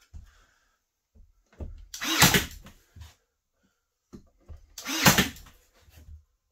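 Battery-powered nail gun firing twice, about three seconds apart, driving nails into wooden window casing.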